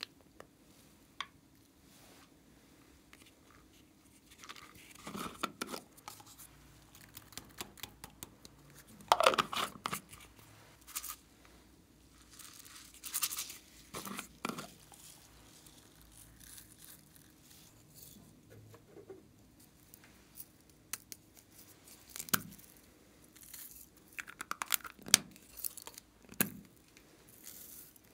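Small plastic toy containers being handled and opened by hand: scattered plastic clicks, rustles and scrapes, with a few louder snapping, tearing-like noises near the middle.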